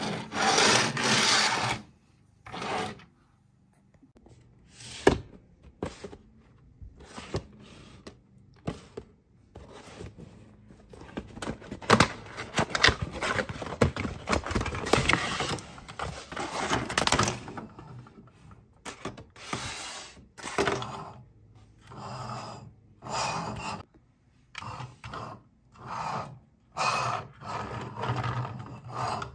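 Hands handling plastic toy vehicles and a cardboard toy box on a tabletop: a string of separate scrapes, rubs, rustles and clicks, with a longer stretch of continuous rustling and scraping in the middle.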